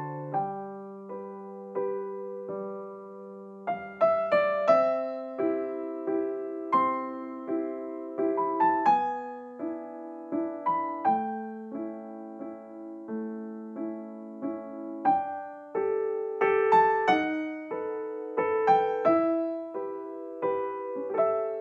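Background piano music: a melody of single struck notes over held lower notes, each note ringing and fading.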